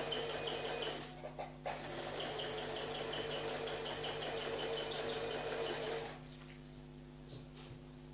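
Electric household sewing machine stitching a seam: it runs with a rapid, even rhythm, stops briefly about a second in, starts again, and stops about six seconds in.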